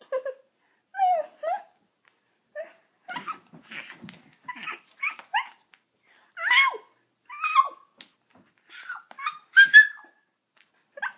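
A girl imitating a cat, making a string of short, high-pitched meows and squeals that bend up and down in pitch, with a brief pause about two seconds in.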